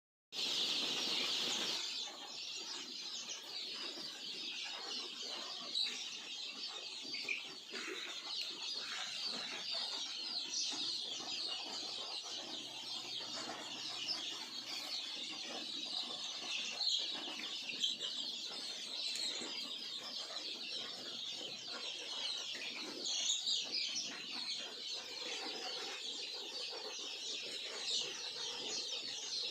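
A large flock of farm chickens, many birds clucking and chirping at once in a steady dense chatter. It opens with a louder rush of noise for the first second or two.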